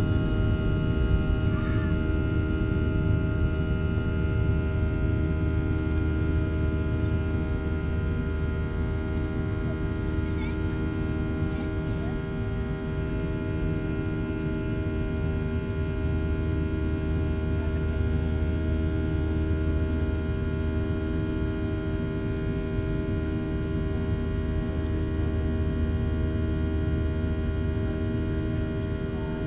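Cabin noise of a Boeing 737-800 climbing just after takeoff, heard from inside by the wing: its CFM56-7B turbofans at climb thrust give a steady hum of many fixed tones over a low rumble.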